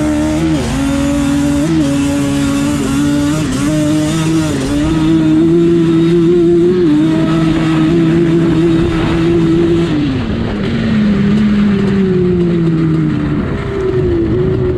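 Yamaha Banshee's twin-cylinder two-stroke engine at full throttle on a drag run. Its pitch holds high with a few brief dips, then falls away about ten seconds in as the quad backs off, and picks up again near the end.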